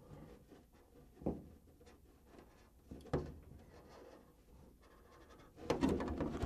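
Hobby knife scoring a clear polycarbonate RC truck body shell, a faint scratching along the cut line with two sharp ticks, about a second in and about three seconds in. Near the end the stiff plastic shell rustles and knocks as it is turned in the hands.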